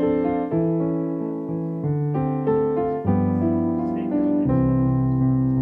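Piano music, a slow melody with held notes changing about twice a second.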